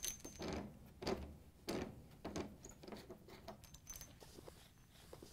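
Faint clicks and scrapes as a washer's fill hose, its threaded metal coupling loosened, is unscrewed by hand from the cold water inlet valve and pulled away.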